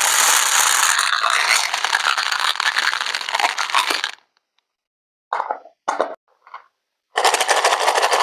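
Water splashing and sloshing with fine crackle in it: a continuous stretch for about four seconds that stops abruptly, then a few short splashes and another longer burst near the end.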